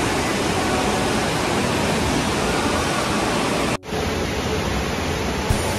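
Steady rush of moving water in an indoor water park's lazy river, with the continuous noise of the big hall. The sound cuts out for an instant almost four seconds in, then the same rush carries on.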